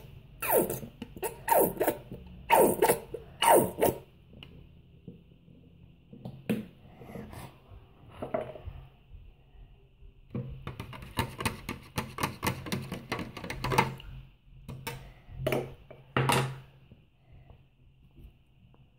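Green plastic doll spoon stirring and knocking against a plastic cup of water. A run of knocks comes in the first few seconds, then a quieter stretch, then quick clicking for a few seconds past the middle, and a last few knocks.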